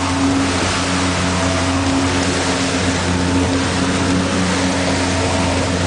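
A small boat's engine running steadily under way, a constant low drone, over the rush of water and wind as the boat crosses rough seas.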